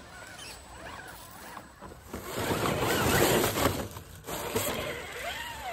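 Dry leaves and grit rustling and scraping under a small RC crawler truck's tyres as it climbs past the microphone. The sound swells loud about two seconds in, stops briefly, then carries on more quietly.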